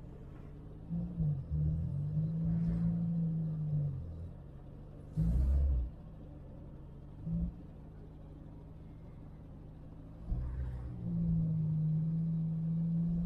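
1950 Simca 8's 1200 cc four-cylinder engine heard from inside the cabin while driving, its note rising and easing with the throttle. There is a loud thump about five seconds in and a shorter one a couple of seconds later. The engine quietens for a few seconds, then pulls strongly again near the end.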